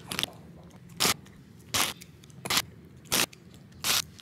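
A Pomeranian chewing a piece of cheese taken from the hand: about six short crunching chews, evenly spaced about two-thirds of a second apart.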